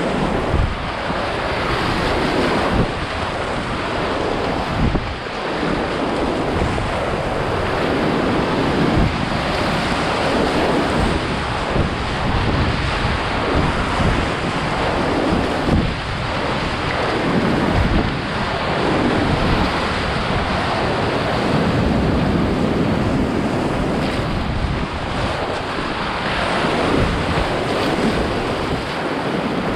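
Whitewater river rushing steadily, with wind buffeting the microphone.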